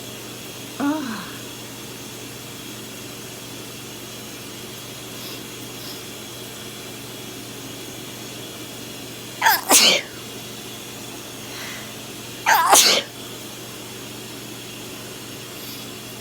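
Two loud sneezes, about ten and thirteen seconds in, the first with a quick double burst. A brief vocal sound comes about a second in, over a steady background hum.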